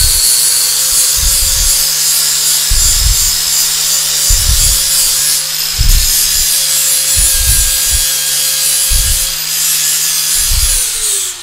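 Angle grinder with a flap disc grinding the bare steel of a car's chassis frame clean for welding: a steady high whine under a harsh grinding hiss, with uneven low thumps. It winds down near the end.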